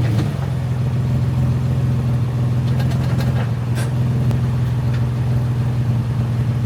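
Nissan 350Z's VQ35DE V6 idling steadily through an aftermarket exhaust, with a few faint clicks about three to four seconds in.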